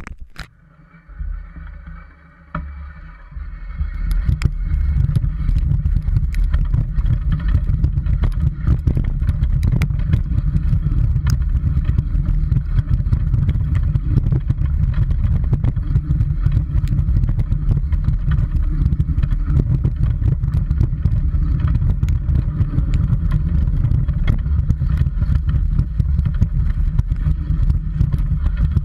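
Dog scooter rolling fast over a rough gravel and mud trail: a loud, steady rumble full of rattles and clicks from the wheels and frame. It starts about four seconds in, after a few quieter clicks.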